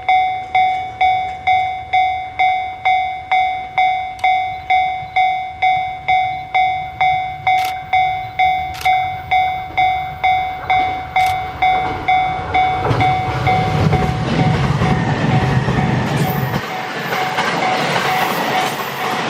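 Japanese level-crossing warning bell ringing steadily at about two strikes a second. About two-thirds of the way in, an E657 series electric express train arrives and passes over the crossing, its rushing wheel-on-rail noise building until it drowns the bell.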